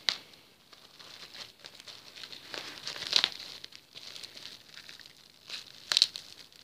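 Clear plastic shrink-wrap being peeled off a DVD case: irregular crinkling, with sharp loud crackles right at the start, about three seconds in, and again near the end.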